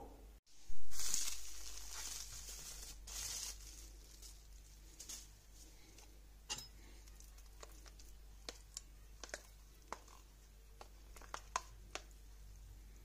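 Plastic wrapper of a packaged millefeuille pastry base crinkling and rustling, loudest about a second in and again around three seconds in. Then a scatter of light clicks of a metal spoon against the bowl as thick pastry cream is stirred.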